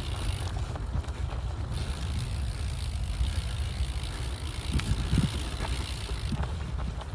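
Wind buffeting the microphone as a steady low rumble, with a few faint bumps and ticks about five seconds in.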